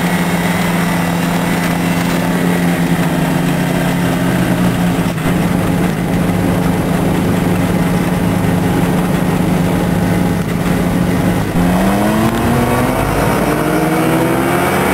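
Challenger II ultralight amphibian's engine and propeller running steadily at taxi power, heard from inside the cockpit. About eleven and a half seconds in, the pitch climbs steadily as the throttle is opened, the start of the takeoff run.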